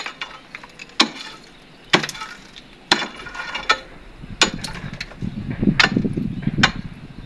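Long steel bar jabbed again and again into the concrete and tile seal of a cemetery wall niche, breaking it open. It lands about once a second with sharp knocks and a clink of broken concrete chips. There is a rougher, lower scraping rumble of rubble about five to seven seconds in.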